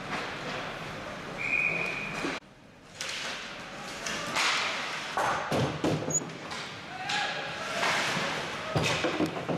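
Ice hockey game sounds in an indoor rink: skates on the ice, sharp clacks and thuds of sticks and puck, loudest in the second half, with spectators' voices behind. The sound cuts out for about half a second near two and a half seconds in.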